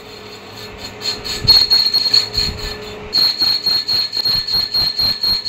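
Metal lathe cutting a large spinning workpiece, the cutting tool giving a steady high-pitched squeal that pulses about four times a second and grows louder about three seconds in.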